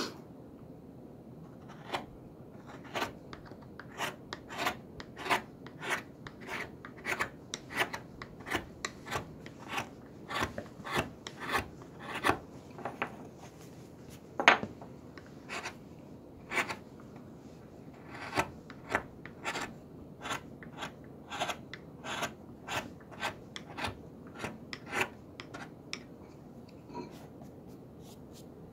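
Flat-bladed carving knife paring thin shavings off the base of a small wooden block by hand. There are short, crisp cuts about one to two a second at an irregular pace, with one louder cut about halfway through. The cuts are trimming the last high spots so the base sits flat and level.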